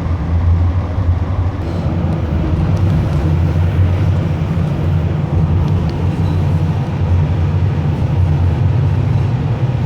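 Light rail train running between stations, heard from inside the car: a steady low rumble.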